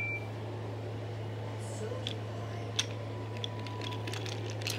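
Wooden toy train trucks rolling along wooden track, their wheels clicking at the track joints: scattered clicks from about two seconds in, closer together near the end, over a steady low hum. A short high whistle tone sounds right at the start.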